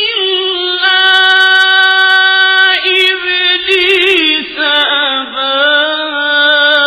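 A male reciter chanting the Quran in slow melodic recitation, drawing out long held notes. About three to four seconds in the voice turns through a wavering ornament, then settles on a lower sustained note.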